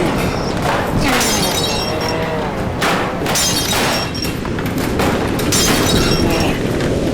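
Dense electronic sound-art collage: a constant loud wash of noise struck by crashing, shattering surges about one, three and six seconds in, with wavering tones gliding up and down between them.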